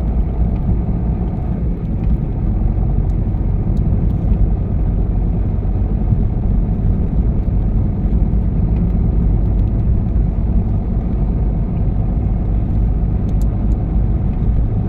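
Steady road and engine noise of a moving car heard from inside the cabin: an even low rumble of tyres and engine while driving.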